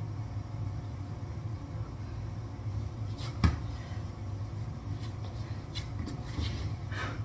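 Feet landing on the floor in a jump from kneeling: one sharp thump about halfway through, over a steady low hum. A few lighter knocks follow near the end.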